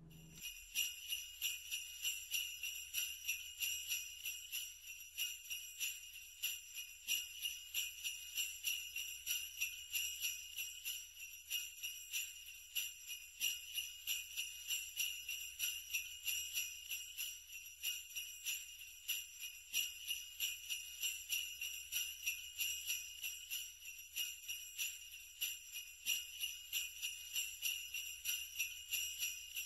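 Sleigh bells jingling in a steady, even shaking rhythm, starting abruptly just after the beginning.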